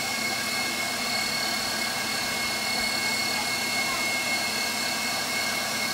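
KitchenAid Professional HD stand mixer running steadily as it drives the pasta press attachment: a constant motor hum with a steady high whine.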